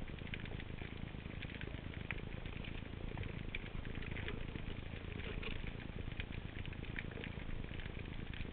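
Underwater ambience recorded on the seabed: a steady low rumble with many faint, scattered clicks and crackles.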